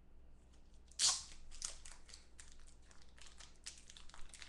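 Plastic wrapping on a trading-card pack being torn open and crinkled: one sharp tear about a second in, then a run of irregular crackles as the plastic is handled.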